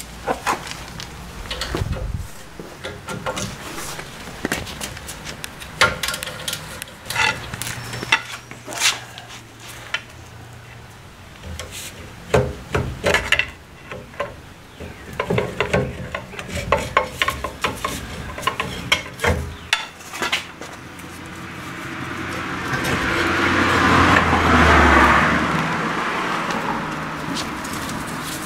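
Irregular metal clinks and knocks of a socket ratchet and wrench working the rear brake caliper bolts. Near the end a broad rush of noise swells over a few seconds and fades again.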